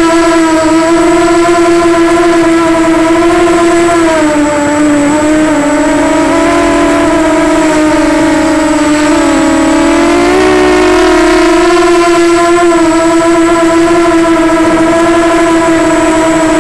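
Walkera Runner 250 quadcopter's four brushless motors and propellers whining loudly, close to the onboard camera, the pitch wavering up and down as the throttle changes.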